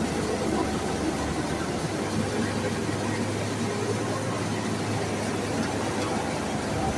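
Rice mill machinery running steadily while milling palay into rice: an even mechanical drone with a low steady hum underneath.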